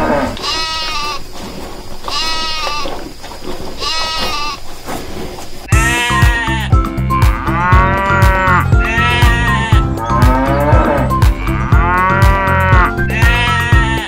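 Farm animal call sound effects: three drawn-out calls of cattle or sheep, evenly spaced. About six seconds in, background music with a steady beat cuts in, and more bleating calls sound over it.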